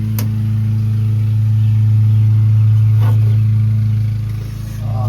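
A motor or engine running with a steady low hum, with a couple of light metallic clicks or taps.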